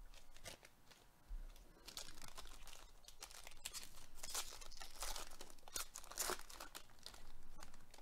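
The foil wrapper of a Panini Prizm baseball card pack being torn open and crinkled by hand, in irregular crackling bursts.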